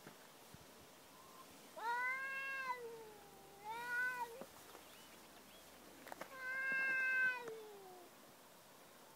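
Cat yowling in a face-off with another cat: three long, drawn-out yowls, the third the loudest, with a lower moan trailing between and after them.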